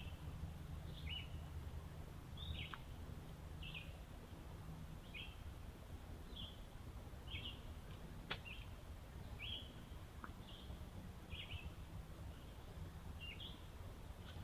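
A bird repeating a short, high chirp about once a second, each call sliding downward, over a steady low background rumble.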